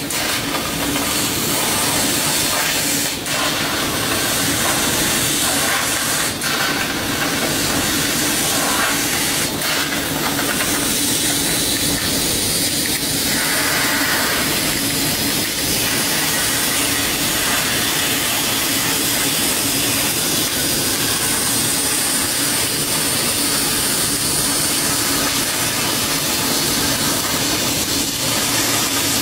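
20 kW fiber laser cutting head cutting thick carbon steel plate: a steady, loud hiss of the cut and its gas jet, with a low hum underneath. A few faint clicks in the first ten seconds.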